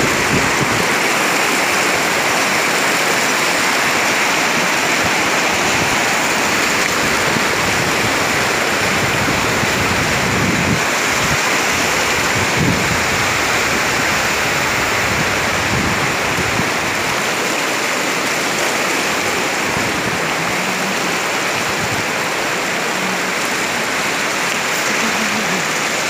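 Fast river water rushing and splashing over boulders: a steady, loud rush of white water.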